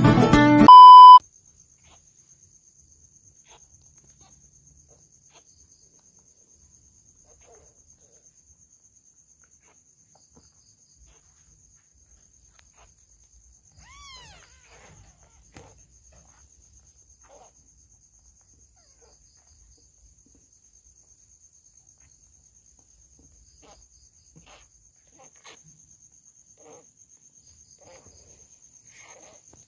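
A short, loud beep about a second in, as intro guitar music cuts off. Then mostly quiet with a faint steady high-pitched trill running throughout, and about halfway through one faint squeaky mew from a newborn kitten among small rustles.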